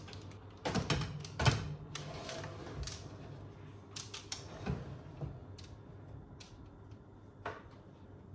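Black metal baking tray knocking and clattering as it is lifted and slid onto the oven's rack rails: a series of sharp metal clanks, the loudest about a second and a half in, with a few lighter knocks later on.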